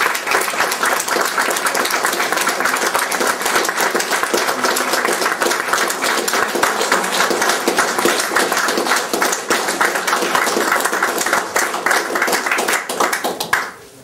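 Applause from a small seated audience, many hands clapping together, dying away shortly before the end.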